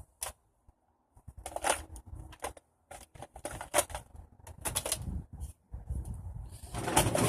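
Irregular plastic clicks and rustling as Nerf blaster gear and magazines are handled, in a dozen or so short bursts with brief quiet gaps between them.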